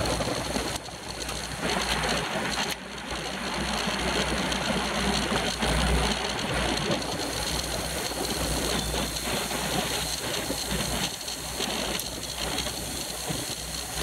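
Wind rushing over the microphone of a bike-mounted camera riding in a pack of road racing bikes, with a steady rumble and the whir of tyres and drivetrains.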